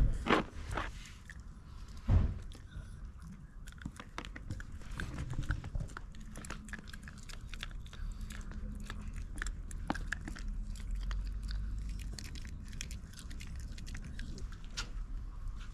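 Shiba Inu biting and chewing a hard bone-shaped Honekko dog treat: crisp crunching clicks, with two loud sharp bites at the start and about two seconds in, then steady smaller crunches.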